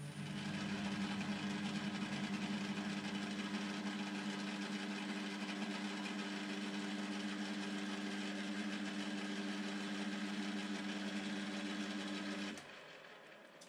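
Metal lathe taking a facing cut across a cast iron workpiece: the spindle drive hums steadily at one pitch under the hiss and scrape of the tool cutting chips. It cuts off suddenly near the end.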